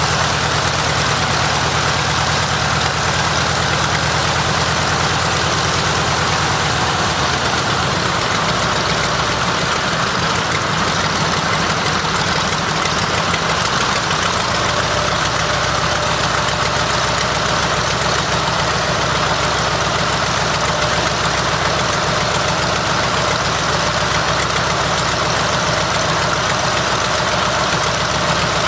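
Nakajima Sakae 14-cylinder twin-row radial engine of a Zero fighter running steadily on a ground run, with its propeller turning. The engine note shifts slightly about halfway through, then settles again.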